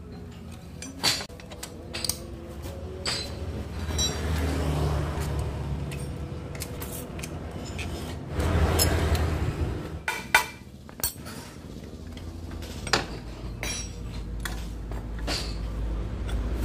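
Metal clinks and clatter of hand tools and bolts as the CVT cover bolts of a scooter are being undone, with two short louder spells of rumbling noise about four and eight and a half seconds in.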